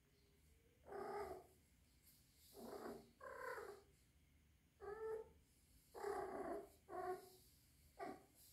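Three-month-old kitten calling: a run of about seven short, pitched calls, each under half a second, starting about a second in. This is the vocalising that the owner wonders may mean she is in heat.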